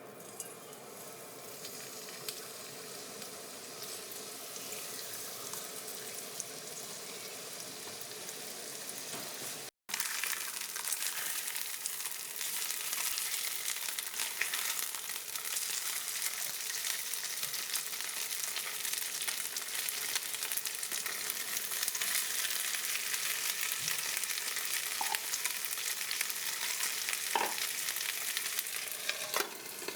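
Food sizzling and crackling as it fries in a pan. The sound is softer at first, cuts out for an instant about ten seconds in, then resumes louder and denser with scattered pops.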